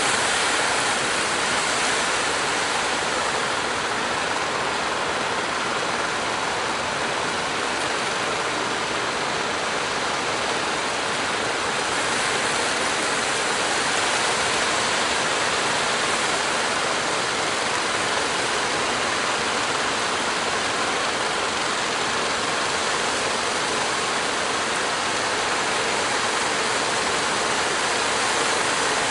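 Steady rush of breaking surf and churning water at a river mouth, an even noise without a clear rhythm.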